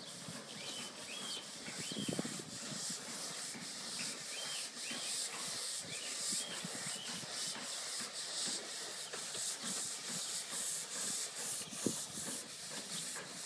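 Miniature 7¼-inch gauge 0-4-2 side tank steam locomotive chuffing as it pulls away under steam: a hiss of steam pulsing in even exhaust beats, about three a second, with a few low knocks from the wheels on the track.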